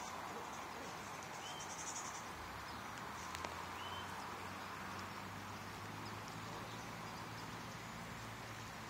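Steady rush of a high, fast-flowing river, with a couple of faint short high chirps and a brief high trill over it.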